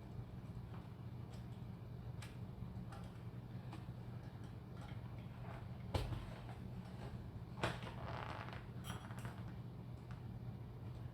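Small clicks and two sharper knocks, followed by a brief scraping rattle, from handling the potentiometers and hardware being fitted into an electric guitar's control cavity, over a steady low hum.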